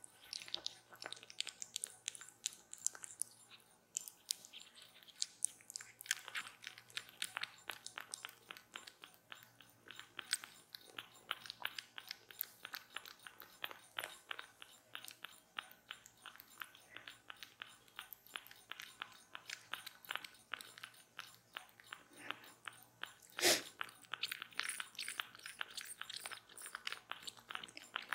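A young tabby kitten suckling from a milk bottle: quick wet smacking and clicking sucks, several a second, with one louder click late on.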